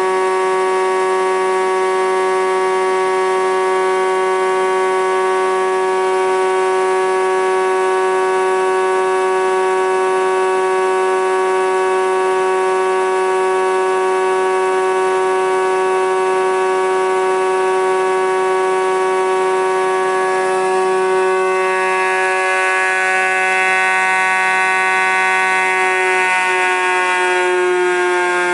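ND 63 thickness planer running with a steady whine made of several layered tones. The pitch shifts slightly over the last several seconds.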